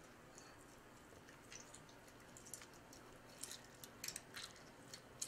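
Half a lemon squeezed by hand over a glass bowl: faint, short wet squishes and crackles. They begin about a second and a half in and come more often toward the end.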